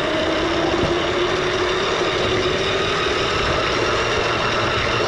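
O gauge model train running along its track right by the microphone: a steady rolling rumble of wheels on rail with a hum held underneath.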